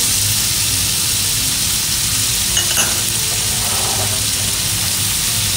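Tomatoes, olives and garlic sizzling in hot oil in a frying pan, a steady hiss, with two light knocks against the pan a little under halfway through.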